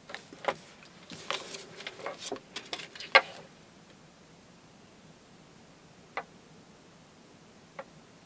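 A bristol board drawing card being shifted and turned on a wooden desk under a marker: a cluster of rustles and clicks over the first three and a half seconds, the sharpest about three seconds in. Then two single light clicks, one later and one near the end.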